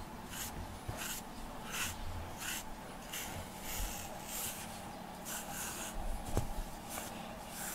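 A pet grooming brush raking through a cat's long fur in repeated strokes, about one to two a second, each a short scratchy swish.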